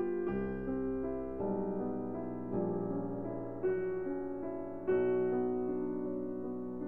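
Slow solo piano music: held chords, a new one struck about every second.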